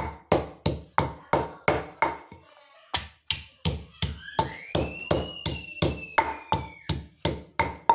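A wooden pestle pounding green chillies and coriander in a stone mortar: steady knocks about three a second, with a brief pause a little over two seconds in before the pounding resumes. A thin whistling tone rises and then slowly falls in the background from about four seconds in.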